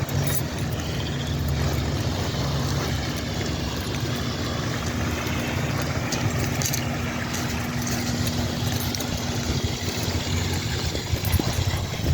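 Wind rushing over the microphone while riding a personal electric vehicle, with a steady low hum under it that drops out about ten seconds in.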